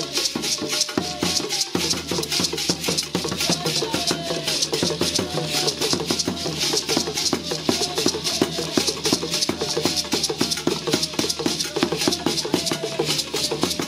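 Traditional drum-and-rattle ensemble: beaded gourd rattles shaken in a fast, steady rhythm over a barrel drum beaten with a curved stick, accompanying a ritual dance.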